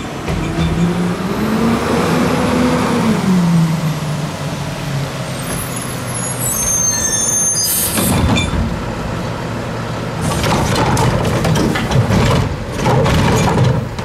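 Front-loading garbage truck's engine revving up and back down, a brief high squeal, then a sharp hiss of air from the air brakes about eight seconds in, followed by irregular clattering and banging.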